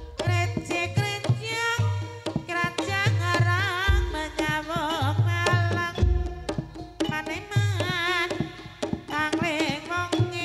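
Live Javanese gamelan music accompanying an ebeg dance: repeated kendang drum strokes under ringing metallophone tones and a high melody with heavy vibrato. A deep gong stroke sounds about 4 seconds in and again about 6 seconds in.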